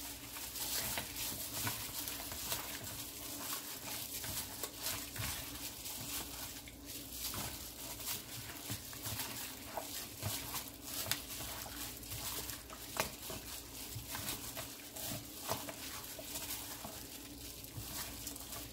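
Gloved hand mixing raw chicken leg quarters into a wet mustard marinade in a plastic bowl: irregular squishing with light clicks and taps.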